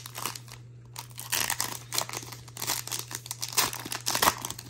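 The wrapper of a Topps Chrome Bundesliga card pack being torn open and crinkled by hand, a dense run of crackling that gets busier about a second in.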